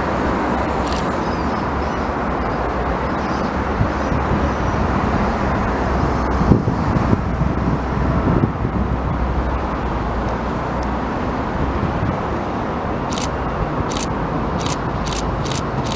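Steady road traffic noise from cars on the road below, rising in a short swell about six and a half seconds in. A run of short, sharp clicks comes near the end.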